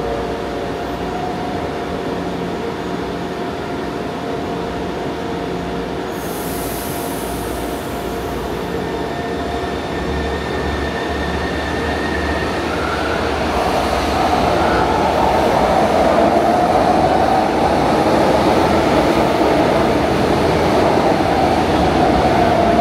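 São Paulo Metro Line 2 train running through the station, with a short hiss about six seconds in. From about ten seconds in it grows steadily louder, and a wavering high-pitched wheel squeal comes in and holds to the end.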